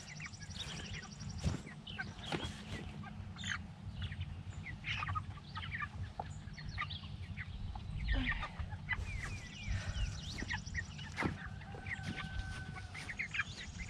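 Four-week-old meat chickens peeping and clucking in short, scattered calls, with a few knocks.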